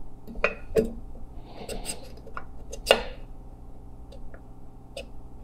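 An upside-down piston clinking against a piston ring and the cylinder bore as it pushes the ring down square in the bore for a ring gap check. The sound is a scatter of light metallic clicks, the loudest about three seconds in, with a brief scrape a little before two seconds.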